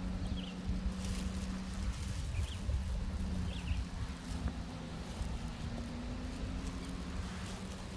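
Outdoor ambience: wind rumbling on the microphone over a steady low engine hum, with a few short, faint bird calls in the first half.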